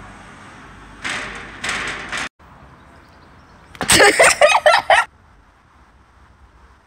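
A loud burst of banging and rattling, about a second long, starting about four seconds in: a fist striking a metal warning sign on a wire-mesh fence. Before it come a faint steady rushing noise and two short noisy rushes, then a sudden cut.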